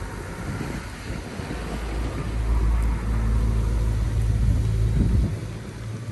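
An engine running nearby with a steady low hum that grows louder about two seconds in, holds for about three seconds, then drops away, over a low wind rumble on the microphone.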